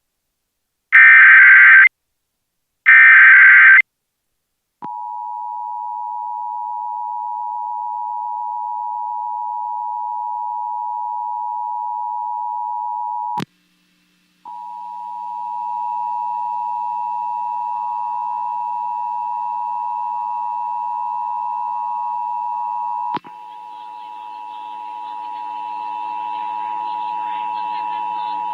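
Emergency Alert System test: the last of the SAME header data bursts, loud and screechy, three short blasts about a second apart, then the EAS two-tone attention signal, a steady dual tone just under 1 kHz. The tone cuts off with a click about 13 seconds in, resumes after about a second of silence, and near 23 seconds another click brings faint station audio in beneath the continuing tone.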